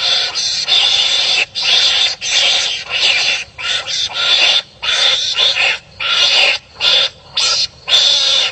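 Wild animals barking at each other: harsh, rasping calls in a rapid run of bursts, each under a second long, with short breaks between them.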